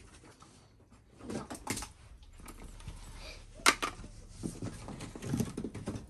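Scattered knocks, clatters and rustles of household objects being handled and moved, with one sharp knock a little past the middle.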